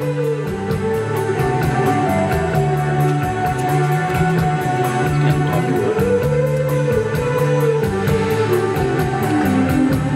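Background rock music: electric guitar over bass and drums with a steady beat.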